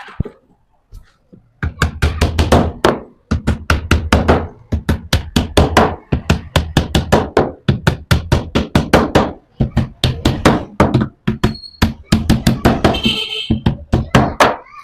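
Rapid series of sharp knocks, several a second, in bursts.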